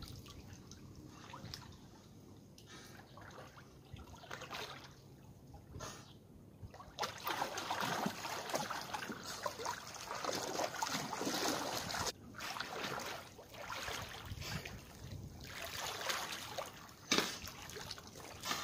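Pool water splashing and sloshing as a swimmer kicks with swim fins and strokes. It is softer and patchy at first, gets busier from about seven seconds in, and has one sharp splash near the end.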